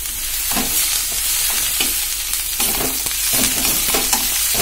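Moringa (drumstick) leaves sizzling in hot oil in a metal kadai while being sautéed with a metal spatula. The spatula scrapes and knocks against the pan in repeated strokes over a steady hiss of frying.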